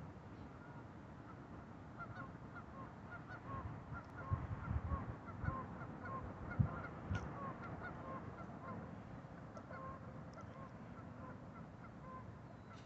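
A flock of geese honking, many short calls repeating a few times a second, with a few low thumps about halfway through.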